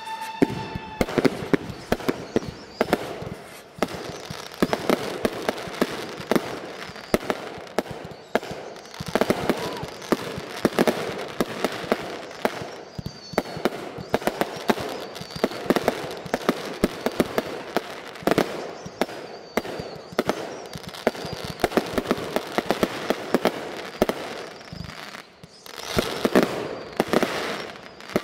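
Fireworks going off in a rapid, continuous barrage of launches, bangs and crackling bursts. A whistling firework fades out about a second in, and the firing briefly thins out near the end before picking up again.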